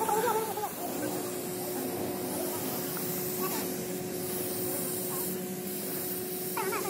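Compressed-air paint spray gun hissing steadily as it sprays paint, with a steady hum beneath.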